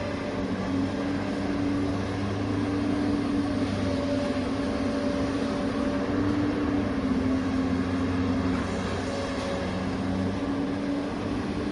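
Small electric motors of RC construction machines running steadily: a hum whose pitch wavers slightly as the load changes.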